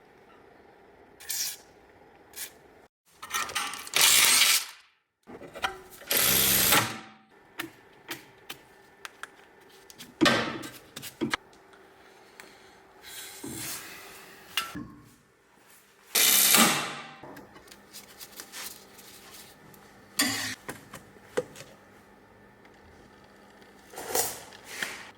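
Hand and power tools at work on a car steering rack: about half a dozen loud, hissing bursts roughly a second long, among scattered clicks and clanks, over a faint steady hum.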